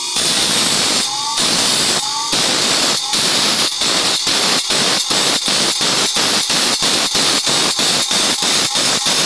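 Bench grinder's abrasive wheel grinding the teeth of a handsaw one after another: a loud grating hiss broken by short gaps as the blade moves from tooth to tooth. The gaps come about once a second at first, then quickly, about three a second.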